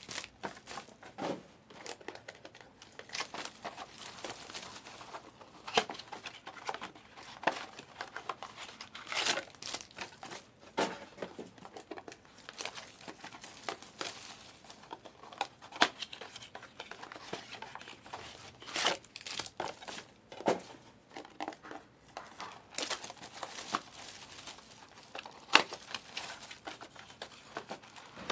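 Trading card pack wrappers crinkling and being torn open as the packs are handled, with irregular sharp crackles and snaps.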